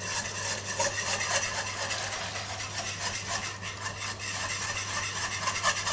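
A whisk scraping rapidly round a pan, whisking the strained cooking liquid into a butter-and-flour roux to make a sauce.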